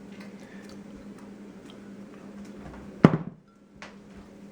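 Kitchen dishes and utensils being handled: faint clinks and taps, then one sharp, loud knock about three seconds in that rings briefly.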